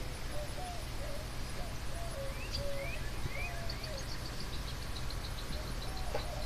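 A flock of birds calling: short rising chirps, a quick run of high chips at about four or five a second in the second half, and lower wavering notes. A steady low rumble runs underneath.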